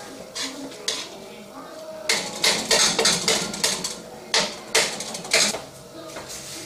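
Metal ladle stirring thick tomato meat sauce in a metal pan, scraping and clinking against the pan. A few light knocks come first, then a quick, busier run of strokes from about two seconds in until about five and a half seconds.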